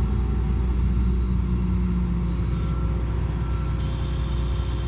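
Vehicle engine idling steadily, a continuous low rumble.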